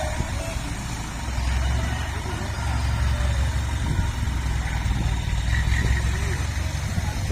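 Heavy dump truck's diesel engine running steadily with a deep, low sound.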